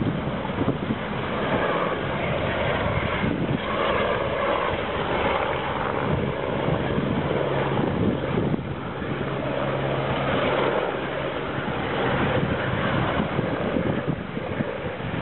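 Firefighting helicopter with a water bucket slung beneath it flying past at a distance, its rotor and turbine a steady drone, with wind buffeting the microphone.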